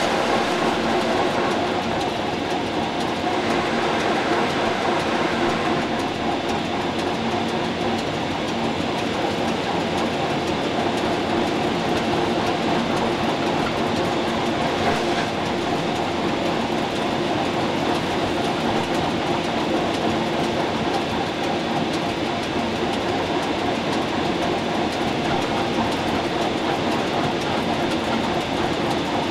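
Rhaetian Railway Ge 6/6 I 'Crocodile' electric locomotive running steadily along narrow-gauge track: continuous wheel-on-rail running noise with a steady hum underneath.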